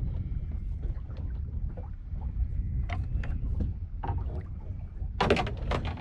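Steady low rumble of a small boat on the water, with scattered small knocks and clicks of handling, then a short burst of louder clattering knocks for about the last second.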